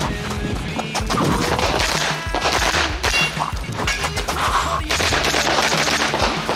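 Pistol-caliber carbine firing a rapid, irregular string of shots during a practical-shooting stage, mixed with a background music track.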